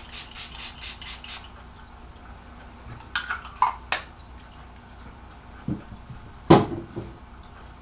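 e.l.f. Coconut Mist face mist being sprayed from a pump bottle over the face: a quick run of hissing spritzes, about five a second, that stops after about a second and a half. A few light clicks follow, then one louder thump near the end.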